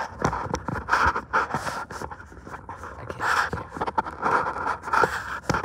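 Close handling noise from a phone being repositioned by hand: repeated knocks and taps with scraping and rubbing on the microphone, and puffs of breath close to it.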